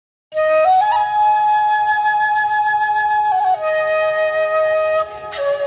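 Flute music: a slow melody of long held notes that steps up near the start, then slides back down twice.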